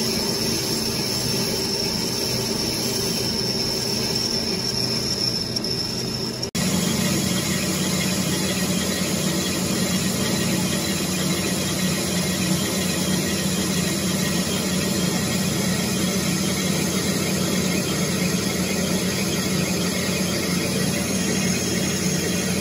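Colchester Chipmaster lathe running while turning a cast iron flywheel, with a steady high-pitched squeal from the cut. About six and a half seconds in, the sound breaks off for an instant and returns as a denser, steady running noise of the lathe.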